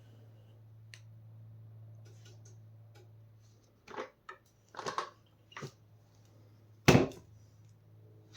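Handling noises: a few short scrapes and clicks starting about four seconds in, then one loud knock about seven seconds in, over a steady low hum.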